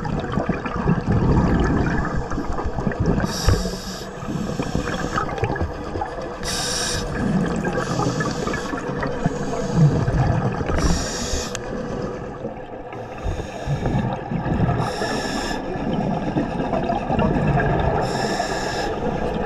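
Scuba diver breathing through a regulator underwater: a hiss of inhalation about every four seconds, five times, with a low bubbling rumble of exhaled air between them.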